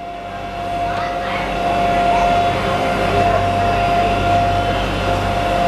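Friendship Boat's engine running steadily: a low drone with a constant whine above it. It fades in over the first second or two.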